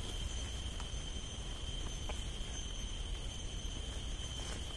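Garden ambience: a steady, high-pitched insect drone over a low rumble.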